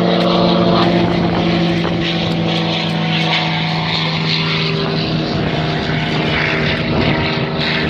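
Single-engine propeller aircraft flying overhead, its engine a steady drone whose pitch drops slightly about five seconds in.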